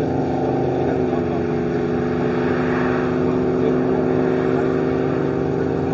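Vehicle engine idling steadily close by, with a soft swell of hiss around the middle.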